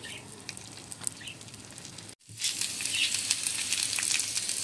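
Cut okra (bhindi) frying in hot oil on a flat tawa griddle: a crackling sizzle that is faint for the first two seconds, then, after a brief gap, comes back louder and denser.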